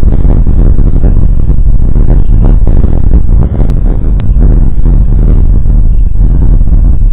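Wind buffeting an outdoor nest-camera microphone: a loud, steady low rumble with a brief dip about three and a half seconds in.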